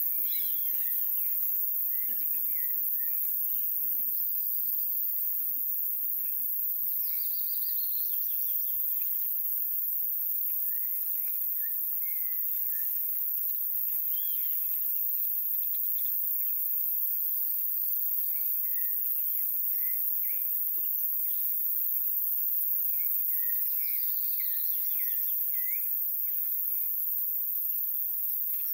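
Outdoor ambience: birds chirping and calling again and again over a steady high hiss.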